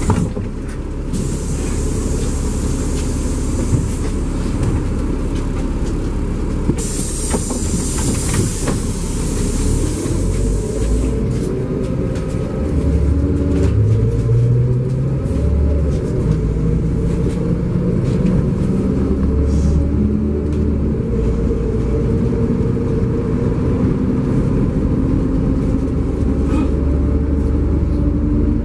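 LiAZ-5293.60 diesel city bus heard from inside while driving: steady engine drone and road rumble, with the engine note climbing gradually over the last several seconds as the bus gathers speed. A high hiss sounds briefly at the start and again about seven seconds in.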